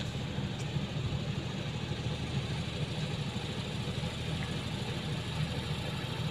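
A generator set running with a steady low engine hum.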